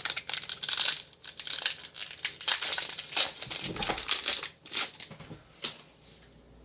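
Foil wrapper of a Pokémon Rebel Clash booster pack being crinkled and torn open, a dense crackling rustle for about four seconds that thins to a few scattered crinkles and clicks.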